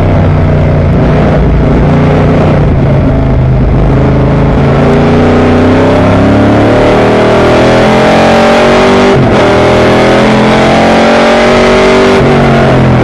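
Race car engine heard from inside the car, pulling hard under full throttle and rising in pitch as the revs climb, with a brief break for an upshift about nine seconds in before it climbs again. At the start it runs low in the revs, just off the brakes.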